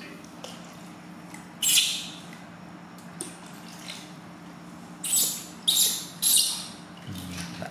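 Newborn baby monkey crying in short, shrill squeals: one loud cry about two seconds in, then three in quick succession later on.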